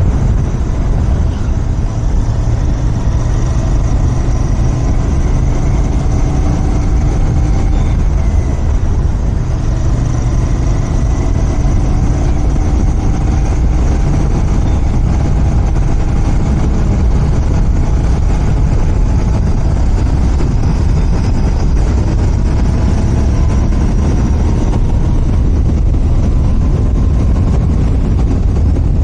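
Royal Enfield Continental GT 650's 648 cc parallel-twin engine running through its stock exhaust while the bike is ridden, its pitch drifting gently up and down with throttle over a heavy low rumble.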